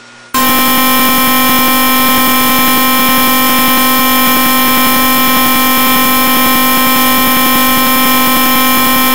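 Emergency Alert System attention tone: a loud, steady, buzzy electronic alarm tone that starts sharply about a third of a second in and holds without a break. It signals that an emergency warning message is about to follow, here a severe thunderstorm warning.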